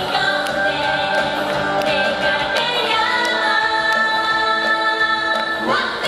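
Japanese idol-pop song performed live: a woman sings lead into a microphone over instrumental backing with a steady beat, holding one long note through the second half.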